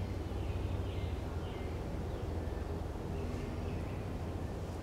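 Several faint, short, high bird chirps scattered over a steady low rumble.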